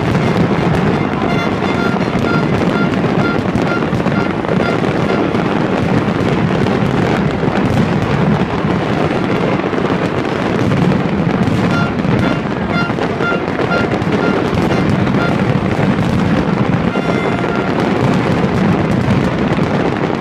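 Fireworks display: a continuous barrage of aerial shells bursting and crackling without a break, with music playing underneath.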